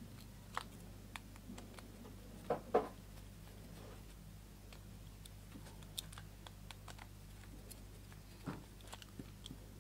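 Small clicks and light knocks of a screwdriver working a screw loose from a plastic contactor housing, with two louder knocks a little before three seconds in.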